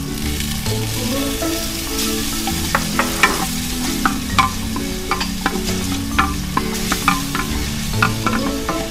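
Garlic, onion and ginger sizzling in hot oil in a clay pot, the sizzle growing stronger about two seconds in as fish sauce goes in, while a wooden spoon stirs and knocks against the pot with a run of sharp clicks. Background music plays underneath.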